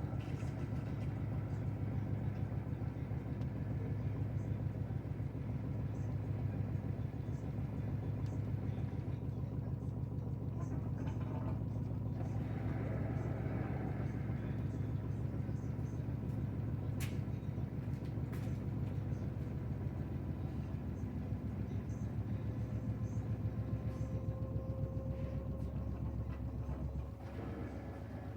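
LG front-loading washing machine in its spin cycle, a steady low hum with a fast pulse from the spinning drum. Near the end a faint whine rises slowly in pitch and the low hum drops.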